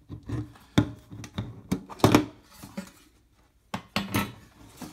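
Metal tin being opened by hand: its lid is lifted off and set down, with a series of short knocks and scrapes of metal. The handling stops briefly about three seconds in, then two more knocks follow.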